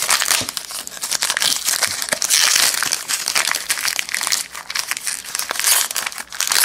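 Plastic wrapper of a trading-card pack crinkling continuously as the pack is torn open and handled.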